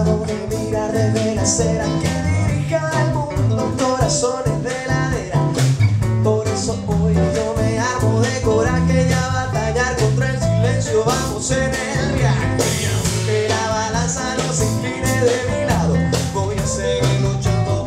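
Live rock band playing a song: strummed and plucked acoustic guitars, low bass notes and a drum kit, with a man singing lead.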